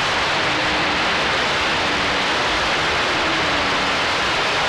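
Steady hiss of static from an AM CB radio receiver on channel 11 (27.085 MHz), open with no strong station on frequency. A faint low tone drifts in and out under the hiss.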